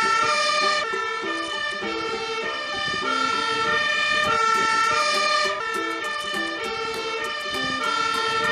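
MAN fire engine with a Magirus aerial ladder sounding its two-tone siren, which keeps alternating between a high and a low note.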